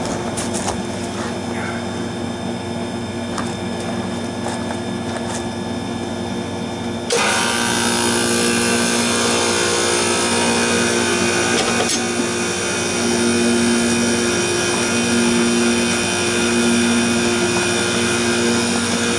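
Refrigeration condensing unit starting up about seven seconds in: the newly fitted compressor contactor pulls in with a click and the R-22 compressor and condenser fan start running with a steady hum and fan noise.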